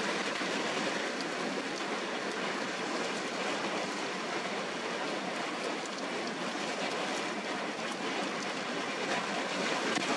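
Steady rush of wind and rain, with scattered faint ticks like raindrops landing.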